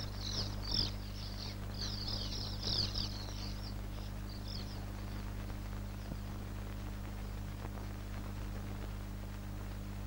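A colony of sand martins twittering, many quick high chirps overlapping for the first four or five seconds, then dying away. A steady low hum runs underneath throughout.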